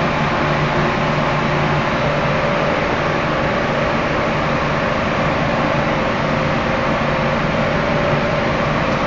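Wire-cutting machine running with a steady hum of several held tones over a constant mechanical noise.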